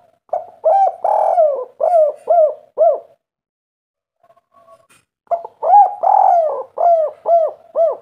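Spotted dove (derkuku) cooing a local 'kuk 3' call: two phrases, each a long coo followed by a quick run of four short falling coos, with a pause of about two seconds between them.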